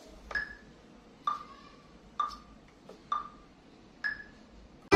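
Metronome count-in: five evenly spaced clicks a little under a second apart, each with a short pitched ping, the first and last pitched higher as bar accents.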